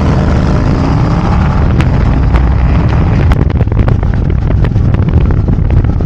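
Harley-Davidson Road Glide's V-twin engine pulling away and accelerating under the rider. Wind buffets the helmet or handlebar microphone with crackles from about three seconds in.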